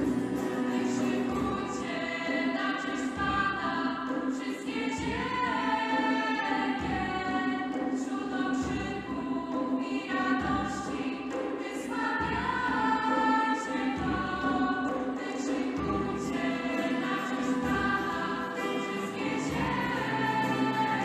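Vocal group singing a Polish Christian worship song in harmony, with instrumental accompaniment and a steady beat.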